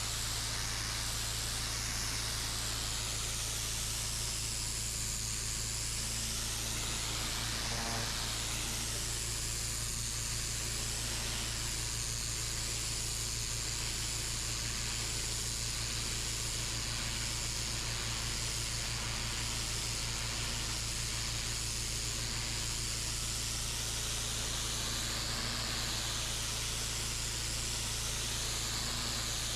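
Pressure washer running steadily: a low machine hum under the hiss of a high-pressure water jet hitting the playground surface, the hiss shifting slowly in tone as the jet is moved.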